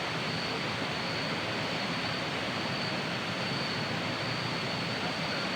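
Steady rush of a waterfall, with a thin, steady high-pitched tone running over it.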